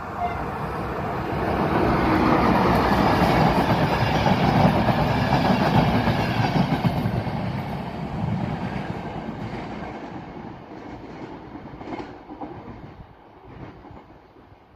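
Czech Railways local passenger train passing and pulling away. The rumble builds over the first couple of seconds, stays loud for about five seconds, then fades steadily. A few single wheel clacks over the rail joints come near the end.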